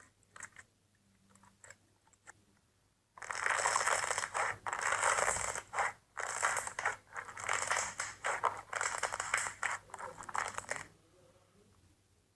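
Slime being squeezed and kneaded, giving a few faint clicks, then about three seconds in a long stretch of loud crackling and crunching in quick uneven bursts that stops about a second before the end.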